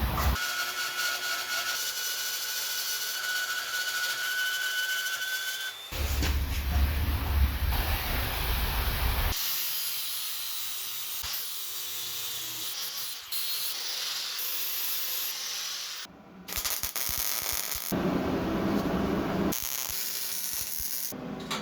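A string of short clips of power tools working on steel, each cut off abruptly. The first has a steady high whine, and a later one has lower, wavering motor tones.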